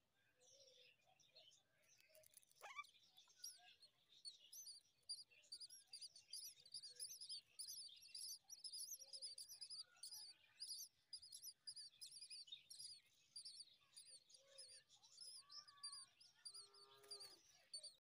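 Myna nestlings begging for food as the parent feeds them: a faint, rapid run of thin, high-pitched chirps repeated over and over.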